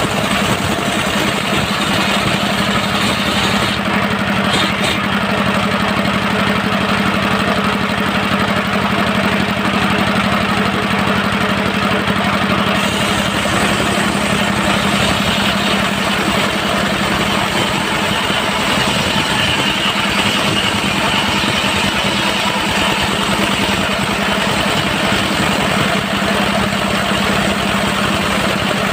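Diesel engine of a mobile circular sawmill running steadily at a constant pace, loud throughout.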